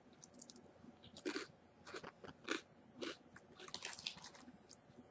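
A person chewing a crunchy Japanese senbei rice cracker topped with furikake and nori: a string of short, faint, irregular crunches.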